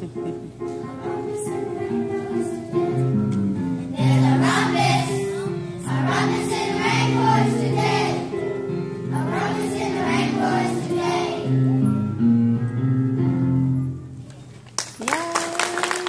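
A group of children singing a song from the stage with instrumental accompaniment. The music ends about a second before the close, and the audience breaks into applause with a rising whoop.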